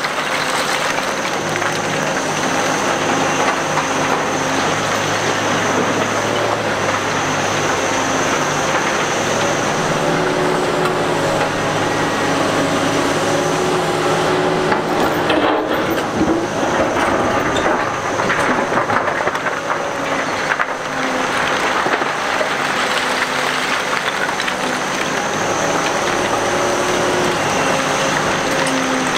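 Heavy diesel engine of a Caterpillar 245B excavator running under working load, its note rising and falling as the hydraulics work. Broken rock clatters and scrapes, most busily around the middle.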